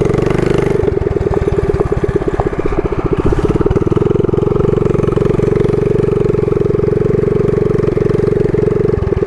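Mini bike's small engine running at a steady speed while being ridden, its firing pulses even throughout.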